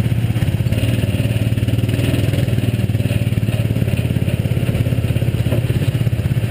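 Go-kart's small engine running steadily under the seat with a fast, even pulsing beat.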